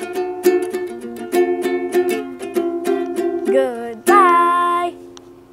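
A ukulele strummed in quick, even chords while a girl sings along, ending on one long held sung note about four seconds in.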